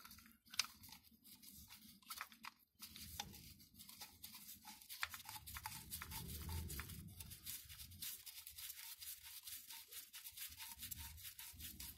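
Faint scraping and many small clicks of hand work on the transmission's cooler-line port, a gloved hand turning an AN fitting against the aluminium case.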